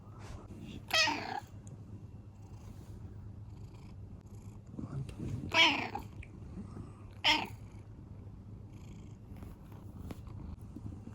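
Domestic cat giving three short, high-pitched calls a few seconds apart, demanding to be fed.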